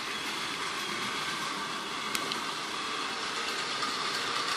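Steady background hiss with one short click about two seconds in.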